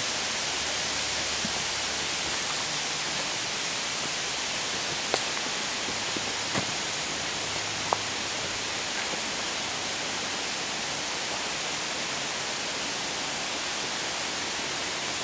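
Steady, even rush of river water, with a few brief clicks about five to eight seconds in.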